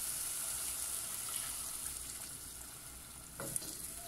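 Sofrito of onion, garlic and cubanela pepper sizzling in a pot, the sizzle slowly dying down as milk is poured in, then a wooden spoon stirring the milk with a short knock against the pot about three and a half seconds in.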